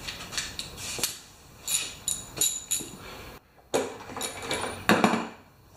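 A string of sharp metal clinks and short rattles, a few ringing briefly: a socket wrench being fitted to and worked on the spark plug of a small mower engine.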